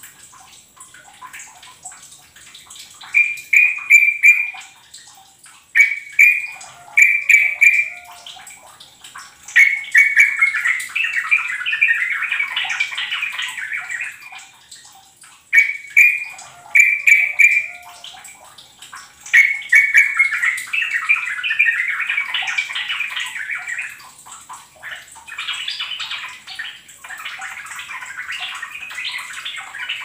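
Yellow-vented bulbul singing. Short phrases of a few quick, bright notes are followed by several seconds of rapid chattering, and the pattern repeats about every ten seconds.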